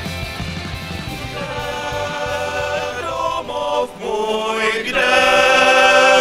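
Male voice choir singing sustained chords, growing louder toward the end.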